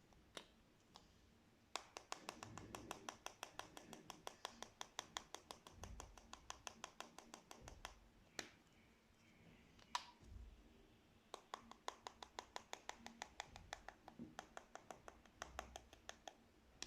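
Slime being squeezed and pressed by hand, making quick runs of small clicking pops, about five a second, with a pause and a few single pops between two runs.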